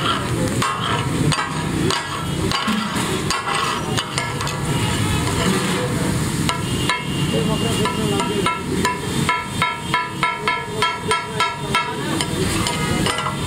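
Metal cooking tools striking and scraping a large flat iron tawa while mutton chops fry in masala with a steady sizzle. In the second half the clanks settle into a fast, even rhythm of about four a second.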